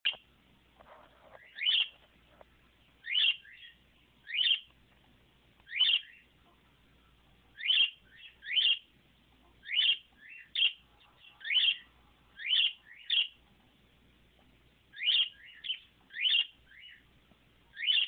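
Male budgerigar (budgie) giving short rising chirps, singly or in quick pairs, about once a second.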